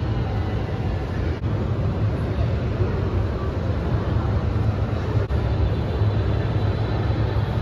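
Ambience of a large, busy indoor hall: a steady low rumble, likely ventilation, under an indistinct murmur of visitors' voices, broken twice by brief dips.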